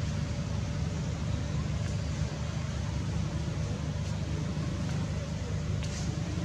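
Steady low rumble with an even hiss over it, and a few faint ticks about six seconds in.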